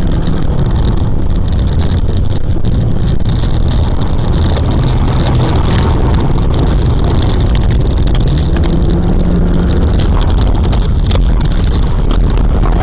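Loud, steady rumbling noise inside a car's cabin as it drives on an icy road, recorded by an in-car dashcam, with many small knocks and rattles throughout.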